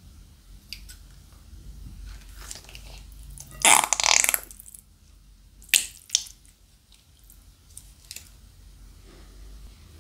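Thick slime squeezed out of a plastic zip bag, squelching and spluttering as trapped air is forced out with it. There is one loud squelch about four seconds in that lasts nearly a second, then two short sharp pops about two seconds later.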